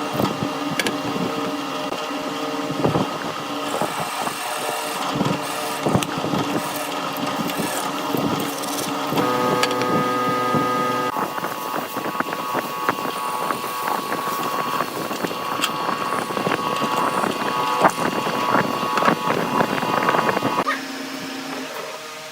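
Power-tool motor running steadily with a pitched hum, mixed with rapid clicking and scraping of wood being worked. The sound changes character about nine and eleven seconds in and drops off near the end.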